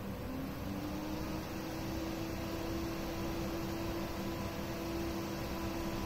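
Gelid PC case fan spinning up: its motor hum starts about a third of a second in, rises in pitch for about a second, then holds steady. Behind it runs the steady hum of other computer fans. The fan's cable has a fault.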